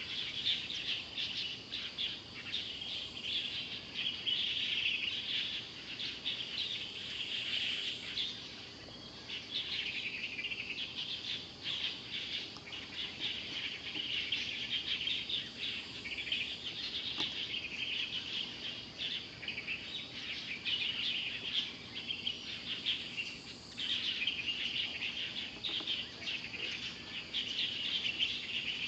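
Steady high-pitched chirping of birds and insects, dense and unbroken, from the surrounding grassland.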